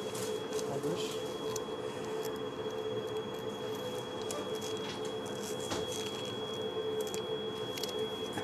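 Steady room hum with a thin high whine, and scattered light rustles and clicks of hands handling a patient's wristband and papers.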